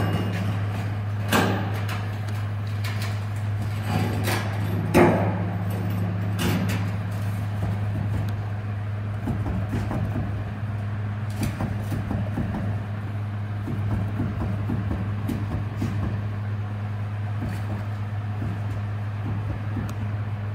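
Hummer H3 on the move with a steady low hum from a bad wheel bearing. A few knocks sound in the first seven seconds or so.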